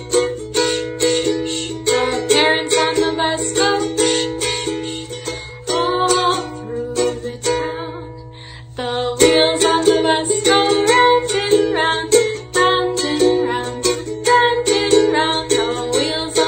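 Ukulele strummed in a steady rhythm of chords, with a short break about eight seconds in before the strumming picks up again.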